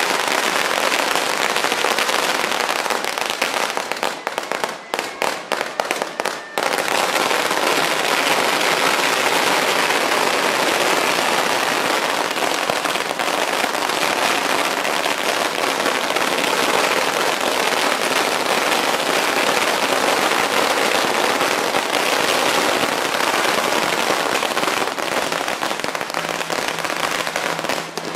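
Firecrackers going off on the ground in a loud, continuous rapid crackle. It thins to separate bangs for a couple of seconds around five seconds in, then picks up again.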